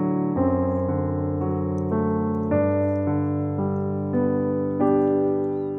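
Background piano music: a slow melody of single notes over held low notes.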